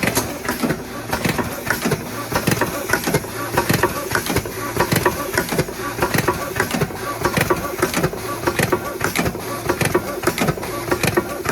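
Automatic carton tax-stamp labeling machine running: the conveyor and label applicator clatter steadily with rapid, uneven clicks and knocks.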